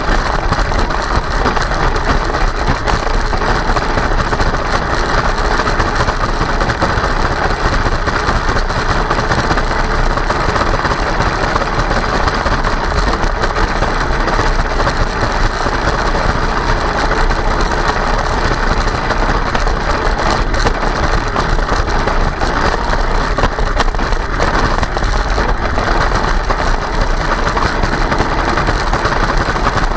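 Kyosho Blizzard RC snowcat running steadily, its electric motor, gearbox and rubber tracks making a continuous loud whirring rattle.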